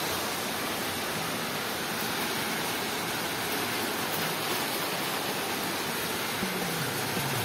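Steady rain falling on trees and a concrete rooftop, an even, unbroken hiss.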